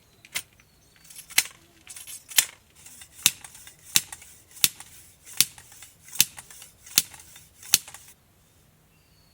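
A series of about ten sharp clicks, roughly one every three-quarters of a second, over a faint hiss that cuts off suddenly near the end.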